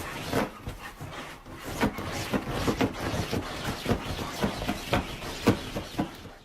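A dog making a quick, irregular run of short sounds.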